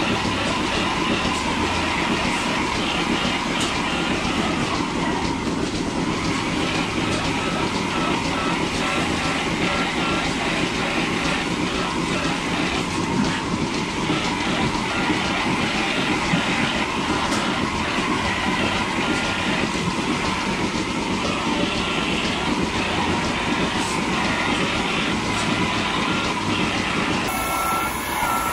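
Rotary milking parlour machinery running steadily: a continuous mechanical rumble with a dense patter of small clicks and a faint steady hum. Near the end the sound shifts abruptly to a closer, different machine noise.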